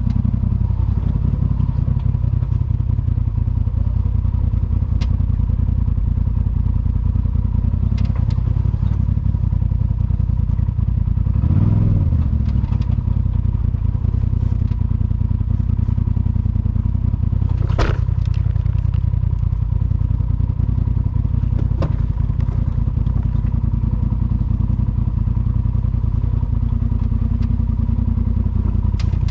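Polaris RZR side-by-side driving on a rough trail: a steady, loud low engine drone with clatter and knocks from the machine going over rough ground. The engine swells briefly near the middle, and there is a sharp knock later on.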